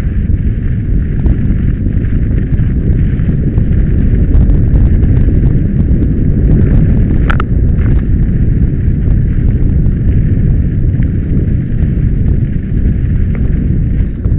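Wind buffeting the microphone of a bike-mounted action camera during a fast downhill mountain-bike descent, a loud continuous rumble. Through it come rattles and knocks as the bike and the loosely fixed camera jolt over the trail, with one sharp knock about seven seconds in.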